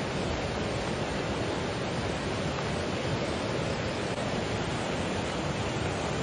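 Steady rush of a flash flood: fast-flowing muddy floodwater from heavy rain pouring over its banks.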